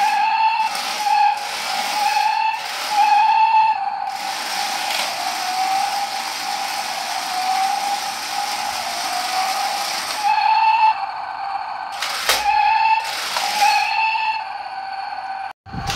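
Toy RC stunt drift car's small electric drive motors and gearboxes whining, swelling and easing about twice a second as it is driven in bursts, with a stretch of steady hiss in the middle and two short knocks near the end.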